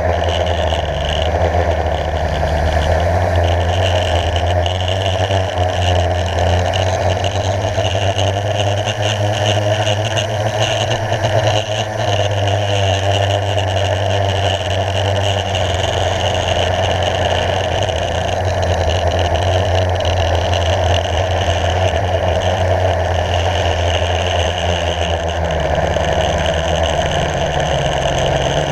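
Blade 350 QX quadcopter's electric motors and propellers whirring steadily in flight, heard from the camera riding on the craft, with a small shift in pitch near the end.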